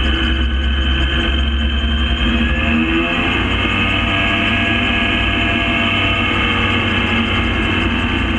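Gyrocopter engine and propeller running steadily; the engine note changes about three seconds in.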